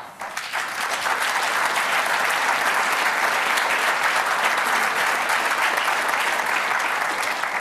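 Audience applauding, the clapping swelling within the first second, holding steady, then dying away near the end.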